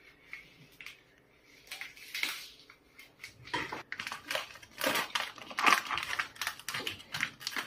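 Knife cutting through guanciale (cured pork cheek) on a cutting board: quiet handling at first, then a run of short, irregular cuts and taps from about three seconds in.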